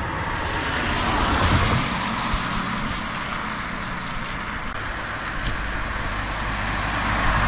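Road traffic on wet tarmac: a steady hiss of tyres, swelling as a vehicle passes about a second and a half in and again near the end.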